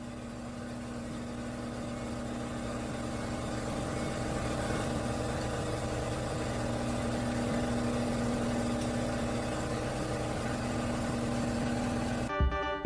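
A motor or engine running steadily with a constant hum, slowly growing louder. Music comes in near the end.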